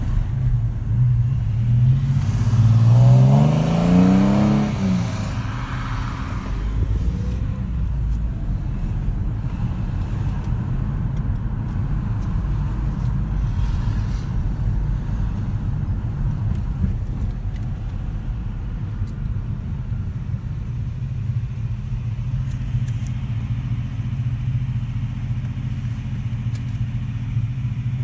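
Car engine revved once, its pitch rising and falling back a few seconds in, then idling steadily.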